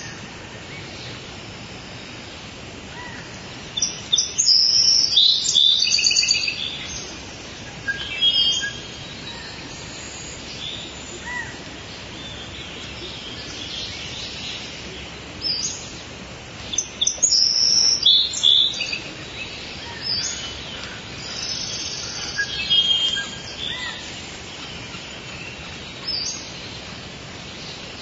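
Rainforest ambience recording: birds calling and chirping in bursts over a steady hiss of forest background. The loudest clusters of calls come about four seconds in and again past the middle.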